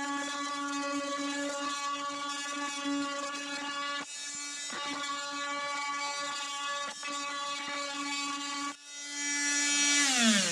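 Corded Makita oscillating multi-tool running at a steady high buzz while cutting a groove into old wooden boat bottom, fitted with a worn blade because staples and nails are expected in the wood. It dips briefly about four seconds in and again near nine seconds, and its pitch falls away at the very end as the tool winds down.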